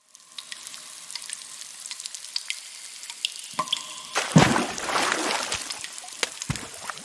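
Water dripping and trickling: many sharp drips over a steady watery hiss, with a faint steady tone underneath, swelling louder a little past halfway.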